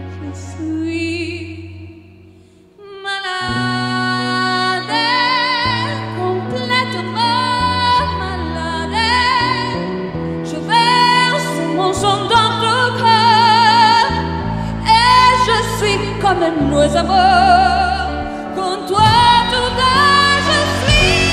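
Female vocalist singing a slow French chanson with a wide vibrato, backed by a big band's sustained chords from saxophones and brass. The music drops almost to nothing about two and a half seconds in, then voice and band come back in together and swell.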